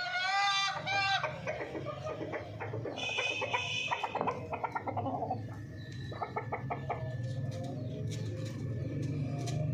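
Domestic chickens, a rooster and hens, calling and clucking: a pitched call right at the start, another higher call about three seconds in, then a run of short clucks.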